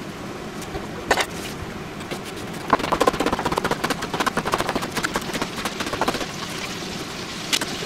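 Kitchen knife chopping a Japanese leek (negi) on a plastic cutting board: rapid, close-spaced strikes starting about three seconds in and running for several seconds. A single knock comes about a second in.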